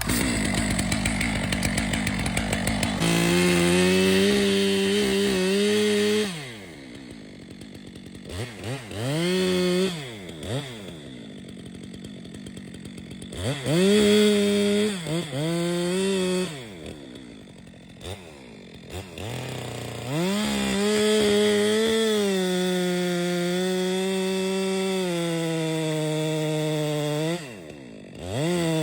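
Stihl MS 462 C two-stroke chainsaw held at full throttle in three long stretches, dropping back to a quieter idle between them, with several quick revs up and down while idling.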